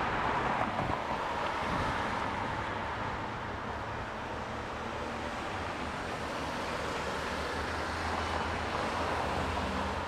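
Steady noise of road traffic: tyres and engines of passing vehicles in a continuous wash, swelling slightly as cars go by.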